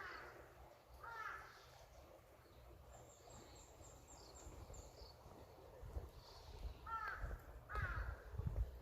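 A crow cawing four times, in two pairs, one near the start and one near the end, with a faint run of rapid high bird chirps in between. Low thuds build up near the end.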